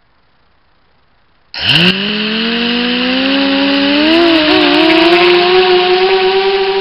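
Blackout Mini-H quadcopter's four brushless motors and 5-inch two-blade props spinning up suddenly about a second and a half in, then a steady high motor whine that climbs a little in pitch as the throttle comes up for takeoff. Heard through the quad's onboard keychain camera microphone.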